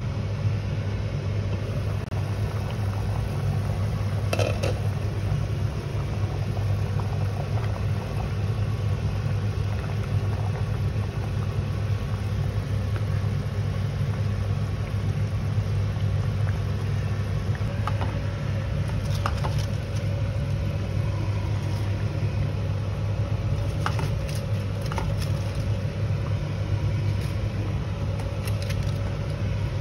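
A steady low mechanical hum, like a running motor or fan, at an even level throughout. Faint light clicks come now and then.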